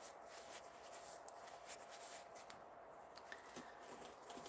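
Faint steady hum of an electric fan running, with a few faint light clicks.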